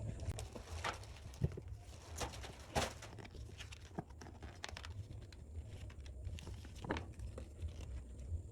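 Handling of a plastic model kit and its packaging: irregular sharp clicks and short crinkles of plastic, over a steady low hum.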